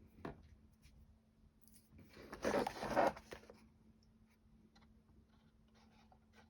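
Hands handling small kit parts: scattered light taps and clicks, with one short scraping rustle about two seconds in that lasts about a second.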